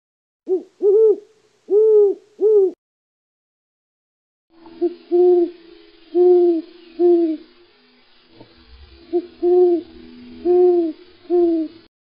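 Owl hooting: four short, arched low hoots in quick succession, then after a pause a second recording with light background hiss in which hoots repeat about once a second.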